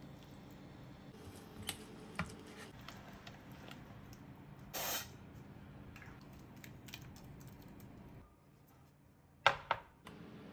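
One short hiss from an oil spray bottle coating a non-stick baking pan, about halfway through. Small scattered clicks and taps come before it, and two sharp knocks near the end are the loudest sounds.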